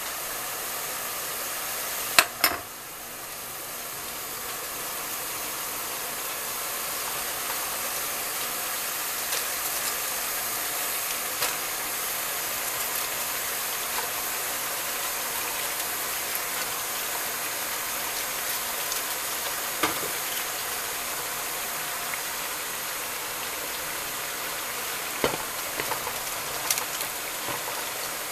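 Chopped cabbage with fatback, oil and country ham sizzling steadily in a large pot as handfuls of raw white cabbage are dropped in. Two sharp knocks come about two seconds in, and a few more clicks and knocks follow, several of them near the end.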